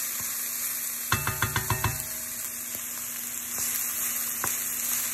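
Hot oil sizzling steadily as breaded chicken deep-fries, with a short run of quick pitched notes about a second in.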